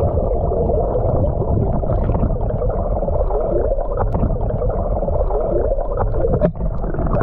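River current heard with the microphone underwater: a loud, muffled, steady rumbling and gurgling of moving water, with the high end cut off.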